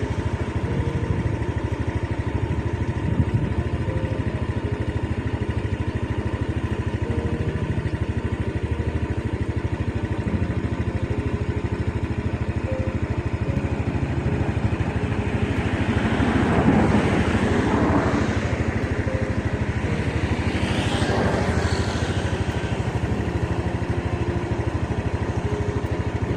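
Motorcycle engine running steadily while riding, with a louder rush of noise swelling and fading a little over halfway through.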